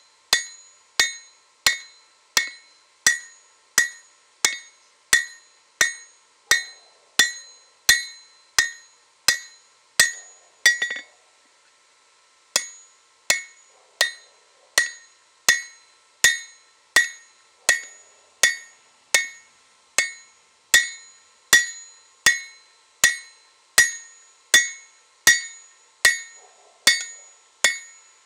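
Blacksmith's hand hammer striking a red-hot steel blade on an anvil, each blow ringing clearly from the anvil. The blows come in a steady rhythm of about one and a half a second, with a short break about a third of the way through.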